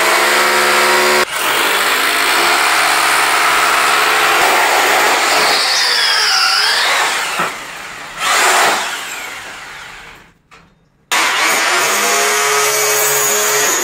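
Electric drill boring a hole into a masonry wall. The motor runs steadily under load, breaks off and briefly restarts around the middle, stops about ten seconds in, then starts drilling again near the end.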